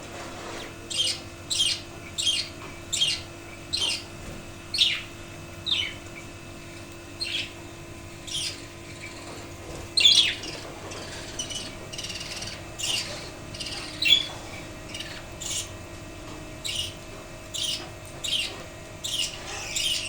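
Budgerigars calling: a string of short, high chirps that sweep down in pitch, about one every half second to one second, over a faint steady hum.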